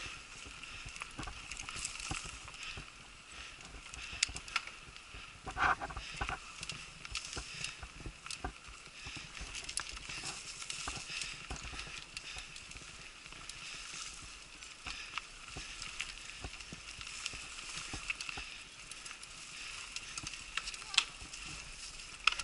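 Mountain bike riding over a dirt forest trail, heard from the rider's own bike: a steady rattle of tyres and frame with many small clicks and knocks. A brief higher-pitched sound cuts in about six seconds in.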